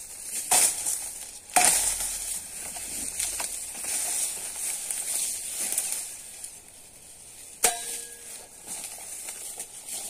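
Napier grass canes being cut and handled among the dry stalks: leaves rustling and scraping, with three sharp cracks, the loudest about a second and a half in and another near the end.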